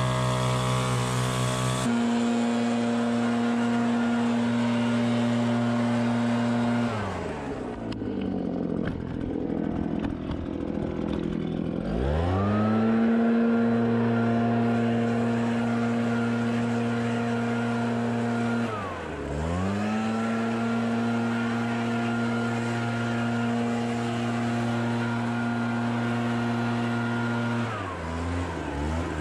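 Two-stroke backpack leaf blower running at full throttle, dropping back to idle about seven seconds in, revving up again about five seconds later, dipping briefly once more, and easing off near the end. A different, lower engine note is heard for the first two seconds.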